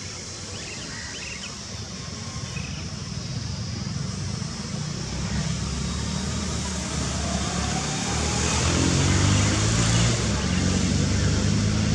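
Outdoor rumble and hiss that grows steadily louder, with a deep rumble coming in from about halfway through.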